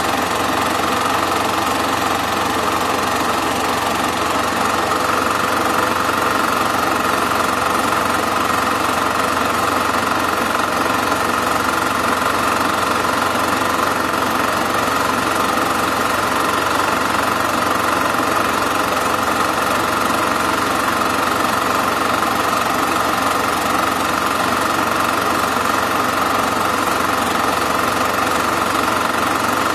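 Super 8 film projector running: a steady mechanical whir and clatter that does not change with the picture.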